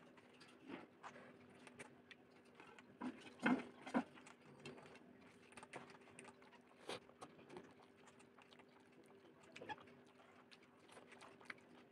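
Close-up eating sounds: chewing a mouthful of rice and tilapia curry, with soft wet clicks of fingers mixing rice on a steel plate. Irregular small clicks throughout, with a couple of sharper clicks a third of the way in, over a faint steady hum.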